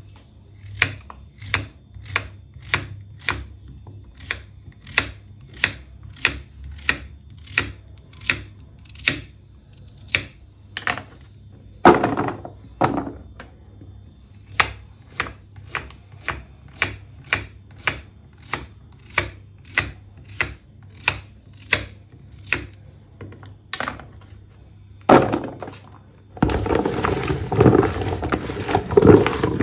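Knife slicing a courgette into rounds on a wooden cutting board: short, sharp chops about two a second. Near the end the chopping stops and gives way to a longer rustling, clattering stretch as the slices are moved into a plastic bowl.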